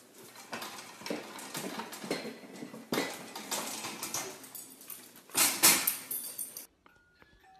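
White metal baby gate rattling and clanking as a dog climbs up it: a run of irregular light metallic clicks and knocks, with a louder clatter about five and a half seconds in.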